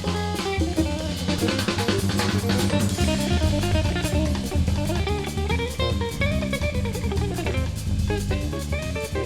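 Live instrumental band playing: guitar, bass, drum kit and percussion, with a melody line winding up and down over a steady bass and busy drums.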